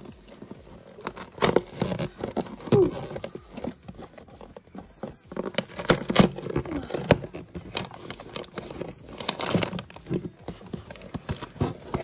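A cardboard LEGO set box being handled and opened by hand: irregular crinkling, scraping and tearing of the cardboard, with a few louder crackles.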